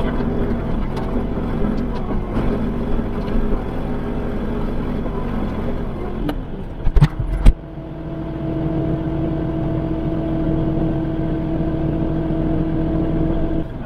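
Kubota L3560 tractor's four-cylinder diesel engine running steadily, with a few loud sharp knocks about seven seconds in, after which the engine settles to a quieter, steadier tone.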